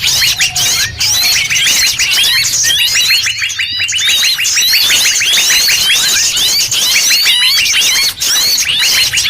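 A dense, noisy chorus of many small forest songbirds calling at once: rapid, overlapping high chirps and quick sweeping notes with no pause. It is a mixed bird-lure (pikat) recording, with calls combined to draw wild birds in.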